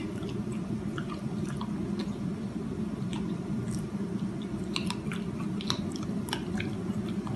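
French bulldog chewing and smacking on a hand-fed treat: irregular short wet clicks, over a steady low hum.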